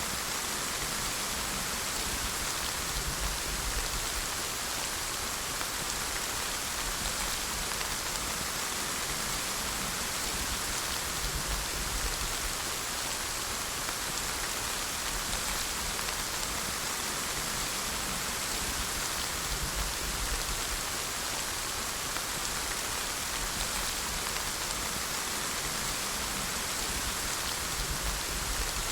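Steady rainfall pattering on a surface, an even hiss that does not change.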